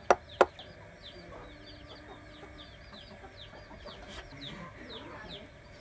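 Two sharp machete chops into a green branch on a wooden log just after the start, then a run of high, falling bird cheeps, about three a second.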